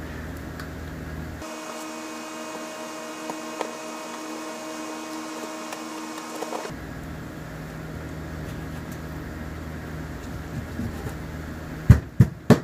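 Steady background machine hum, whose tone changes for about five seconds in the middle. Near the end, three heavy thuds as a kitchen knife chops through a soft-shell turtle's neck onto the cutting board to take the head off.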